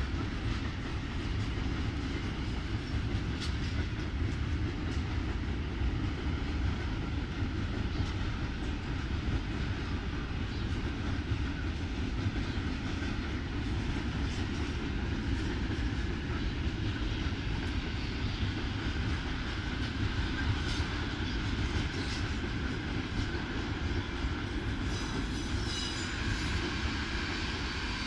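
Freight train of covered hopper wagons rolling past at steady speed: a continuous low rumble of steel wheels on the rails with scattered light clicks, and a few faint high squeals near the end.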